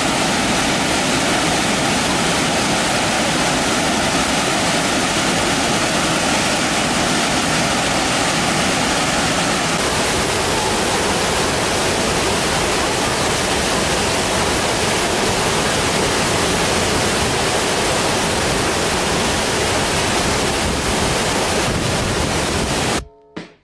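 Burney Falls, a large waterfall, making a loud, steady rush as it plunges into its pool; the sound shifts slightly about ten seconds in and cuts off abruptly near the end.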